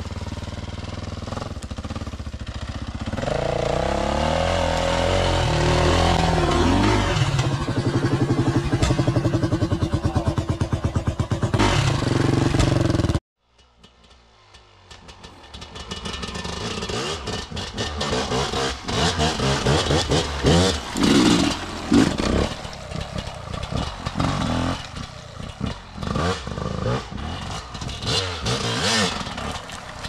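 Enduro dirt bike engine revving hard, its pitch climbing through the revs again and again. It cuts off abruptly about thirteen seconds in, then comes back in short, uneven throttle bursts.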